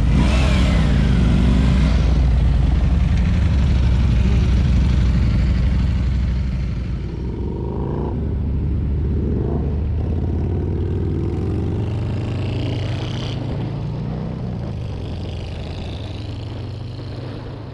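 Motorcycle engines running as a group of bikes pulls away, revs rising and falling in the first couple of seconds, over a steady low rumble. There is wind noise on the helmet-mounted microphone.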